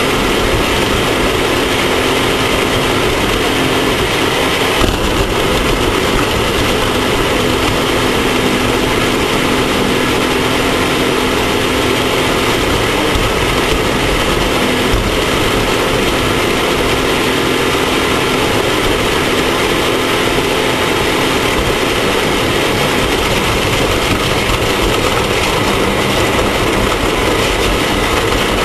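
Off-road race vehicle's engine running steadily under load, in a dense, unbroken rush of noise with no clear revving up or down.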